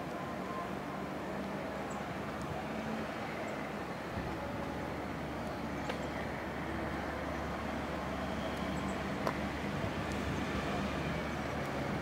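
Steady hum of road traffic, with a faint engine drone and a few light clicks.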